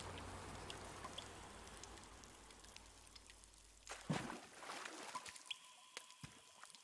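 Faint trickling water that fades away over the first few seconds, followed by scattered drips. There is a short louder knock about four seconds in.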